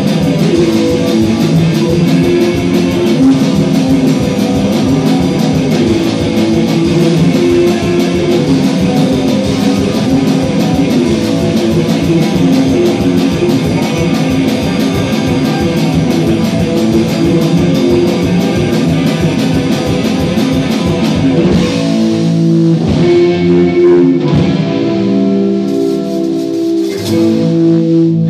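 A drum kit and an electric guitar playing rock together at high volume, the drums keeping a steady fast beat. About three-quarters of the way through, the drums drop out and the guitar carries on mostly alone.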